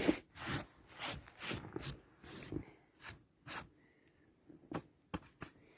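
Footsteps crunching, about two a second, then slowing to a few sharp scrapes near the end.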